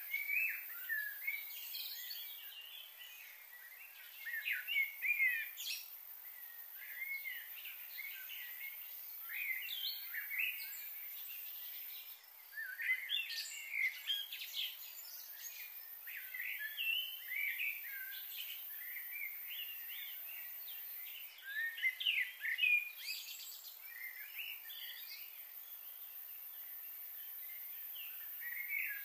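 Small birds chirping and twittering in quick, high-pitched bouts every few seconds, with short lulls between.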